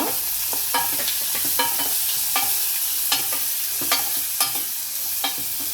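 Chopped onions and green chillies frying in oil in a pot, sizzling steadily, while a spoon stirs them, scraping and knocking against the pot about twice a second.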